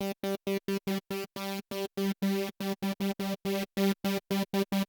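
Serum 2 software synth patch, with its Hyper effect switched on, playing a rapid run of short staccato notes on one steady pitch, about five a second, each cut off sharply.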